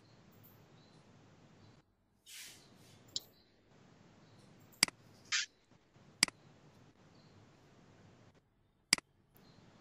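A computer mouse clicking four or five times, single sharp clicks a second or more apart, over a faint steady hiss. Two short soft hisses fall between the clicks.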